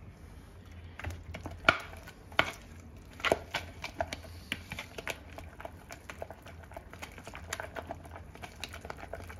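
Wire whisk clicking and scraping against a bowl in quick, irregular strokes, beating sour cream and flour into a smooth, lump-free thickener.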